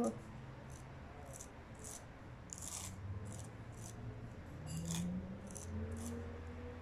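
A palette knife scraping and smoothing relief paste through a plastic stencil: a series of short, uneven scraping strokes, the strongest about three and five seconds in.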